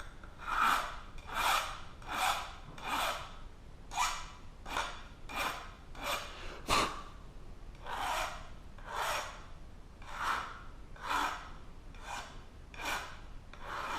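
Hand file rasping back and forth over the freshly cut end of a MIG welding gun's wire liner, taking off the sharp edge. The strokes are steady and rhythmic, about one a second.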